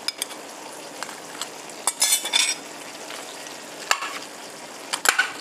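A steel spoon scraping and clicking against a ceramic bowl while breaking apart a cooked rohu fish head: a few short scrapes and taps over a steady faint hiss.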